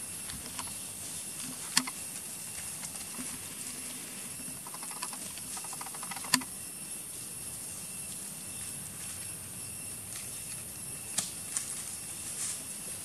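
Outdoor ambience: a steady high hiss, with sharp clicks about two, six and eleven seconds in.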